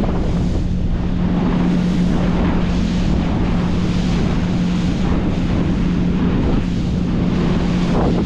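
Motorboat engine running steadily at speed, a constant drone, with wind buffeting the microphone and water rushing past the hull.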